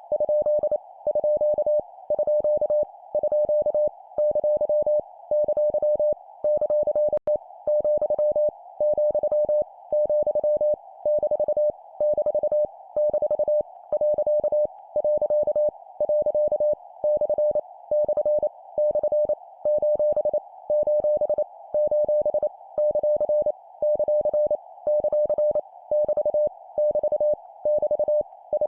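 Morse code (CW) at 25 words per minute: a single steady beep keyed rapidly into dots and dashes, sent as short groups of punctuation characters, each repeated three times, with brief pauses between groups. A steady narrow-band hiss runs under the beeps, like a receiver's passband.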